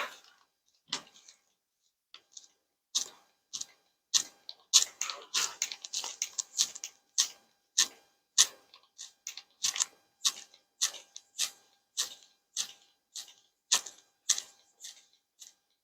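Short rubbing and tapping sounds of hands working a neck massage. They come sparsely at first, then repeat about twice a second.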